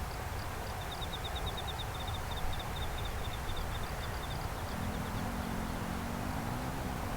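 Night insects chirping in fast, high, repeated trills over a steady low rumble. About five seconds in, a low hum comes in and rises slightly in pitch.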